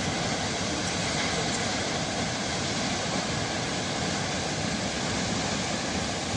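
A tall waterfall's falling water, heard as a steady, even rush.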